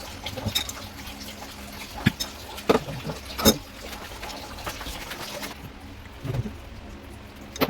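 Water running from a tap in a steady hiss that stops about two-thirds of the way through, with a few sharp knocks over it.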